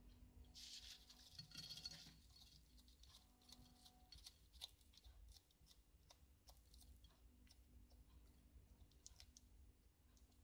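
Bearded dragon biting and chewing lettuce leaves: faint crisp crunching and tearing, with a rustling burst about a second in, then a run of short sharp clicks from the bites.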